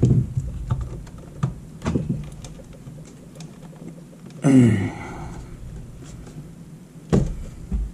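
Scattered clicks and knocks as a small bench power supply in a perforated case is picked up, turned and its cord plugged in, with a brief muttered voice sound about halfway through and a sharper knock near the end.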